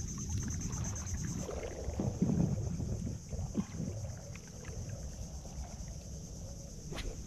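Wooden paddle strokes in the water beside a small wooden outrigger canoe, with uneven swishing and lapping, heaviest in the first few seconds. A single sharp knock near the end.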